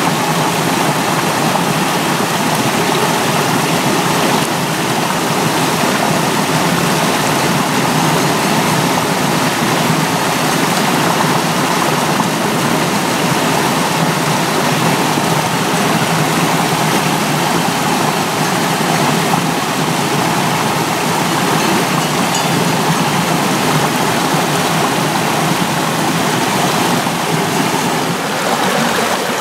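Stream water spilling over a small rocky cascade into a pool, a steady rushing and splashing.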